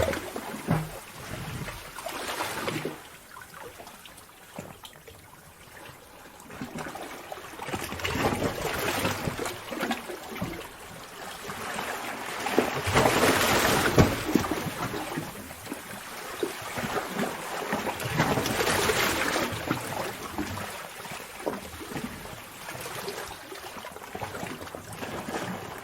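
Seawater surging into a sea cave, sloshing and splashing against rock, swelling and ebbing about every five or six seconds.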